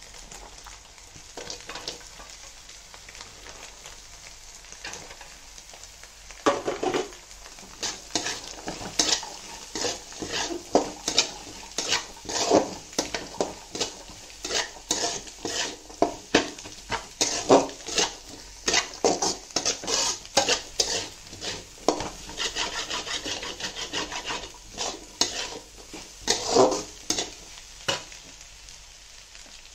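A steel spatula scraping and knocking against a hammered aluminium kadai as chopped carrots and green beans are stir-fried, over a low sizzle. A faint sizzle for the first several seconds, then quick strokes, a few a second, until near the end.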